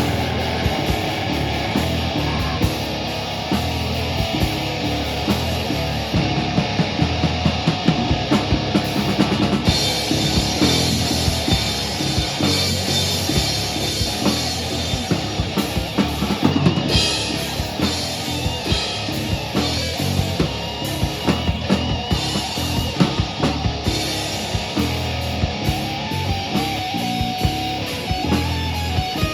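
Live band playing loud, continuous rock with a drum kit pounding out frequent hits under guitar and bass.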